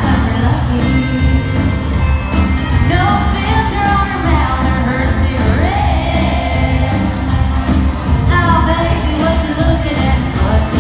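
Live country band performance with women singing over full band backing and a steady beat.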